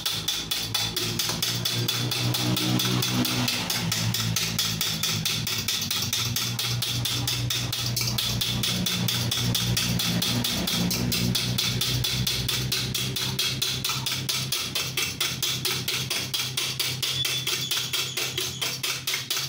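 A fork beating eggs by hand in a bowl: a fast, steady clatter of the tines striking the bowl, whipping the eggs to a froth.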